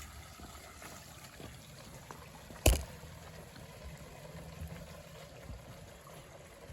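Spring water trickling steadily from a pipe coming out of the ground, with a single sharp knock about two and a half seconds in.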